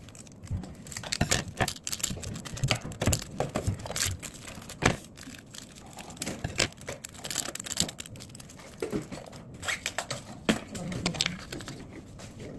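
Small clear plastic packets crinkling and rustling as they are picked up and sorted by hand, with irregular light crackles and taps on the table.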